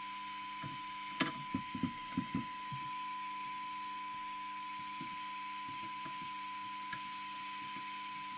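Realistic TRC1003 CB receiver's audio output: a steady 1 kHz test tone over hiss, the signal generator's weak test signal being received while the IF transformer is tuned for best SINAD. A cluster of sharp handling clicks and knocks on the circuit board comes about a second in.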